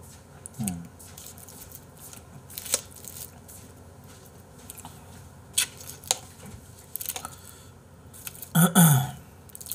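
Sporadic sharp clicks and light rustles from eating: chopsticks tapping the plastic tray and a dried laver (gim) sheet being handled to wrap raw beef, with chewing between. Near the end a brief vocal sound from the eater is the loudest thing.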